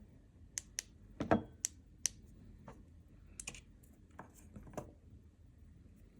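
Irregular sharp clicks and knocks, about ten in all, from a NEBO Torchy flashlight being handled; the loudest, a fuller knock, comes about a second and a half in.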